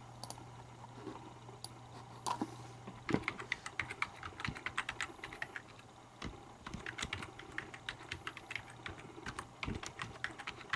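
Typing on a computer keyboard: a few scattered key clicks, then quick runs of keystrokes from about three seconds in, as an account password is entered at a Mac login.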